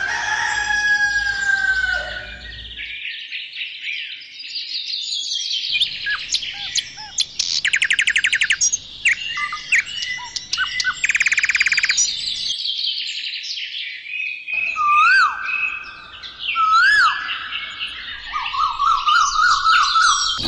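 A chorus of songbirds chirping and singing, several different calls overlapping: fast buzzy trills about a third and halfway through, and single rising-and-falling whistles about three quarters of the way in.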